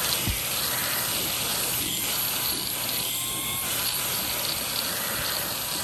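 Samsung Jet 60 Fit cordless stick vacuum running in handheld mode: a steady hiss of rushing air with a faint high motor whine.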